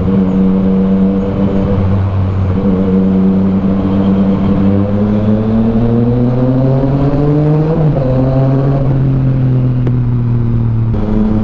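Yamaha Tracer 900's inline three-cylinder engine with an Akrapovic full exhaust system, heard on board while riding. It runs steadily, then climbs in pitch under acceleration for a few seconds before dropping suddenly at a gear change about eight seconds in, and then holds a steady cruise.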